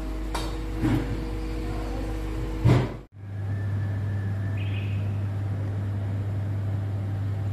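A metal skimmer scraping and knocking against a large pilaf kazan as the rice is stirred, with a louder knock just before the sound cuts off abruptly. It is followed by a steady low hum.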